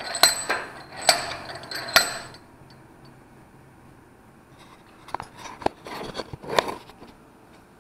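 Small metal tools handled on a metal workbench: a quick run of sharp, ringing metallic clicks and clinks in the first two seconds or so, then a few more knocks and clicks between about five and seven seconds in.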